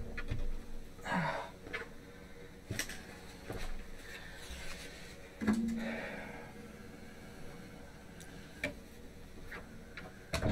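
Desktop PC case being handled and turned on a desk: scattered knocks and clicks, the loudest a thump about five and a half seconds in.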